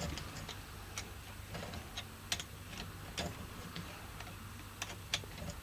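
A few faint, sharp clicks and light taps at uneven intervals, over a low steady hum.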